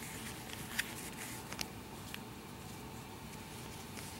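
Faint scattered clicks and taps of hands handling a plastic model horse and a doll, over a steady low hiss.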